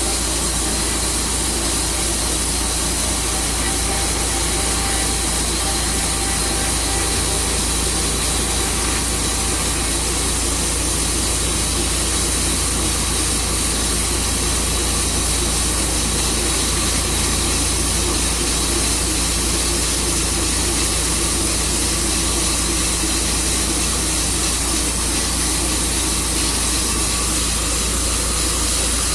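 Tru Cut sawmill running steadily: a constant engine drone with a dense hiss over it, unchanged throughout.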